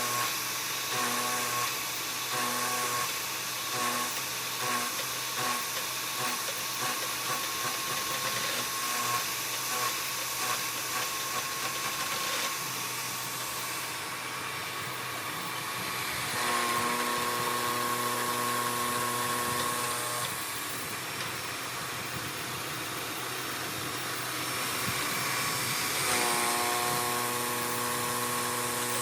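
CNC knee mill machining under program control: a spindle and axis-motor whine over a cutting hiss. The whine pulses about once a second at first, then holds steady tones for a few seconds at a time as the toolpath changes.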